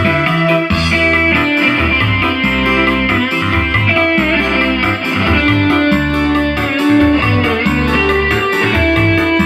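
Instrumental band music: a lead electric guitar playing a fast, busy melodic solo over bass, keyboards and drums.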